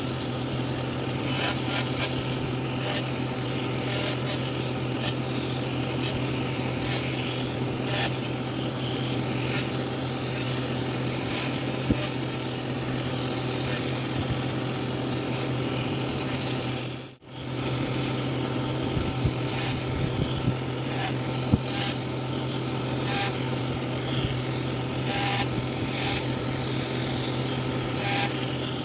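Wood being abraded by a carving tool: a steady working sound over a constant low hum, with scattered small clicks. It cuts out suddenly for an instant a little past the middle.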